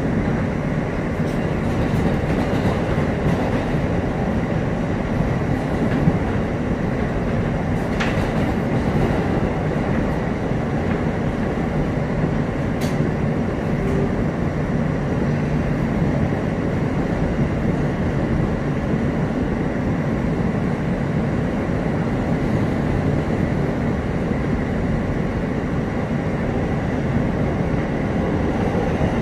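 Steady rumble of an R160 New York City subway car running between stations, heard from inside the car, with a couple of brief sharp clicks about eight and thirteen seconds in.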